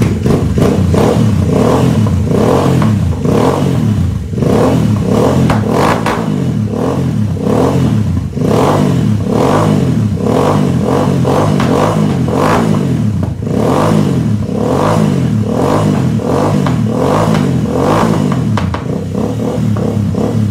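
Royal Enfield Interceptor 650's parallel-twin engine through an aftermarket full exhaust system, blipped repeatedly so the revs rise and fall over and over. It stays at low revs with a deep tone.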